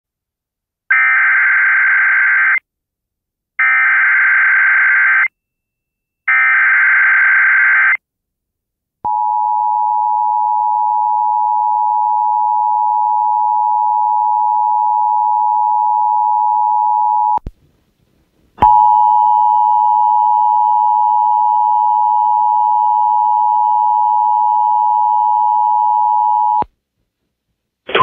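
Emergency Alert System alert from a Sage EAS ENDEC: three bursts of SAME digital header data, each just under two seconds long, then the two-tone EAS attention signal (853 and 960 Hz). The tone runs about eight seconds, breaks off briefly, and sounds again for about eight more seconds.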